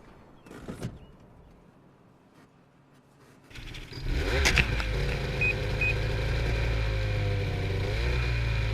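An engine starts about four seconds in and runs steadily, with two short beeps soon after it starts.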